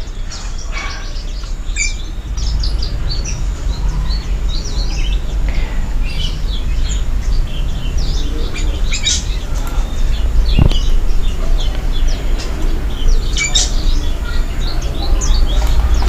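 Small birds chirping and twittering, many short high calls overlapping, with a few louder calls standing out, over a steady low rumble.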